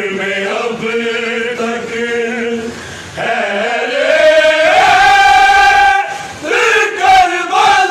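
A group of men chanting a noha, a Shia mourning lament, together in chorus. About halfway through they hold one long note, then break off briefly and go on.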